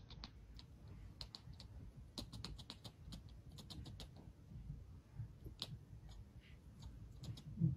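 Tuxedo kitten chattering: soft, irregular clicks in short runs of two to four, the jaw-clicking a cat makes while staring at prey it cannot reach.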